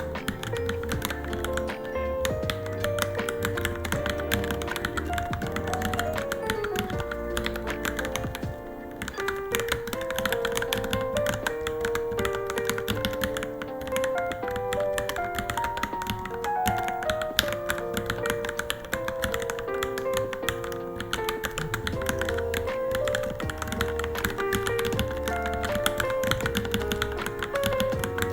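Rapid, continuous typing on a Varmilo Minilo mechanical keyboard, a dense stream of key clicks, heard over background music with a melody and a bass line.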